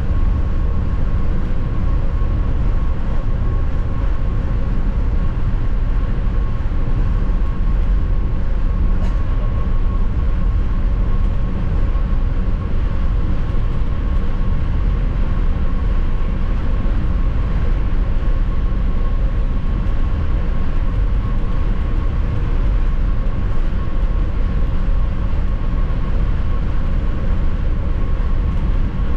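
FlixTrain passenger train running steadily at speed: a constant low rumble with a steady high whine over it.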